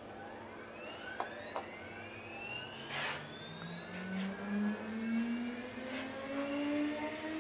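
CNC drilling machine spindle spinning up to speed before drilling a conveyor belt: a whine that rises steadily in pitch throughout, with a few light clicks and a short hiss about three seconds in.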